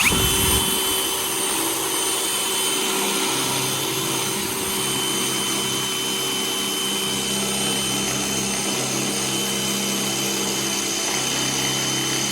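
DeWalt XR cordless drill starting up and running steadily with a constant motor whine, drilling a hole into the tractor's shaft housing to reach and knock out a pin.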